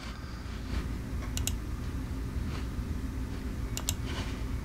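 Computer mouse clicking a few times, with quick double clicks about a second and a half in and again near four seconds, over a steady low hum.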